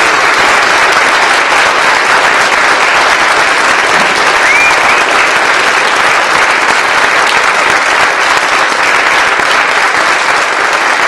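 Theatre audience applauding steadily, with a brief rising whistle-like tone about four and a half seconds in.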